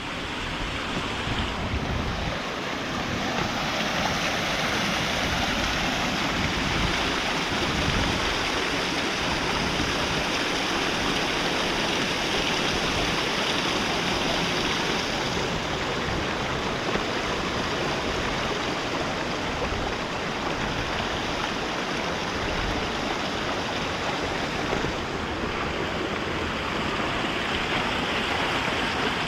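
Rocky brook water rushing steadily over stones.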